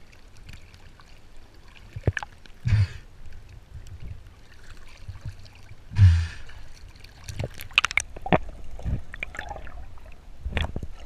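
Sea water sloshing and gurgling around a camera held at the surface, with two louder splashes about three and six seconds in and a few sharp knocks later on.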